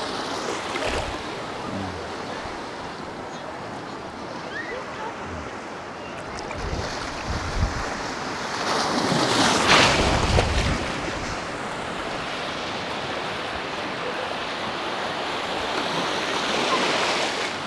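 Sea surf breaking on a beach in strong wind, with gusts buffeting the microphone. A wave surges loudest about ten seconds in.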